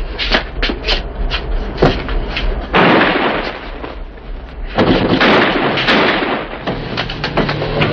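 Sound effects of a fistfight: a quick run of blows, thuds and knocks in the first few seconds, then two longer, noisier stretches of scuffling.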